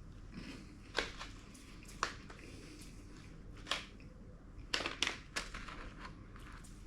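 Several sharp, short crunches and clicks at irregular intervals, with a quick run of three near the middle: something crisp being crunched or crushed.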